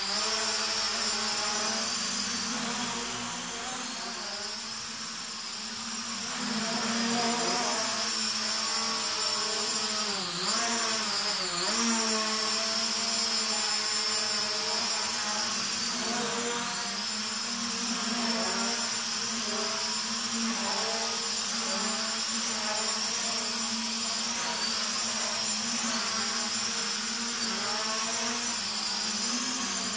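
Hubsan X4 H502E mini quadcopter's motors and propellers whining steadily in flight, the pitch wavering up and down as it adjusts thrust, with a deeper dip and recovery about ten seconds in.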